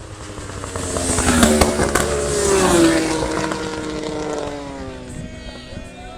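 Racing motorcycle passing at speed on a road circuit. Its engine note builds to loudest about two seconds in, then drops in pitch as it goes away. Near the end, another engine climbs in revs.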